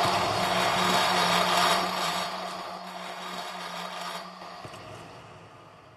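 Electric drill clamped in a drill stand, running with a grinding, scraping noise over a steady hum, played live as a sound effect. The noise fades away gradually, and the hum stops about three-quarters of the way through.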